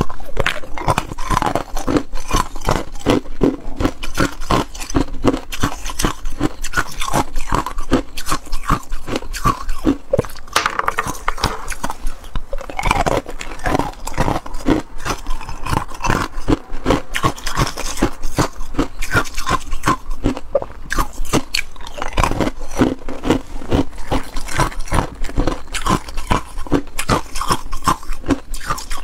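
Ice cubes being bitten and chewed, a dense, continuous run of sharp crunches and cracks.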